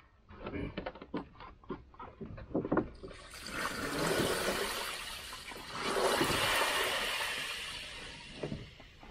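A plastic kiddie pool, used as the ducks' wading pool, is tipped over and its water gushes and splashes out onto the ground. The pool knocks and scrapes as it is gripped, then the water rushes out in two surges, about three and six seconds in, and tails off near the end.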